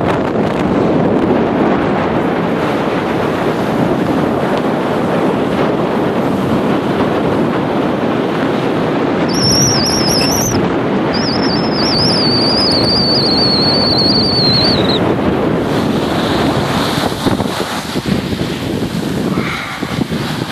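Wind rushing over the microphone and a snowboard scraping over packed snow during a run down the slope. About ten seconds in, a high, wavering whistle sounds for several seconds, and the rushing eases off near the end.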